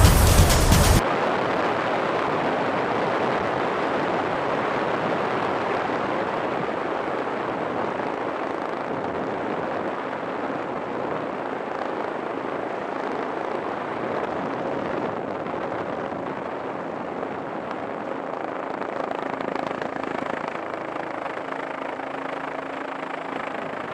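Helicopter in flight heard from aboard: a steady rushing drone that eases slightly lower over time, with a faint steady hum underneath in the second half. A louder sound cuts off abruptly about a second in.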